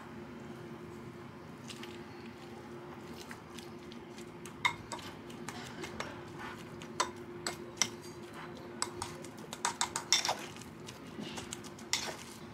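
Metal fork mashing boiled sweet potato in a glass bowl: irregular clinks and taps of the fork against the glass, coming thicker and louder in the second half.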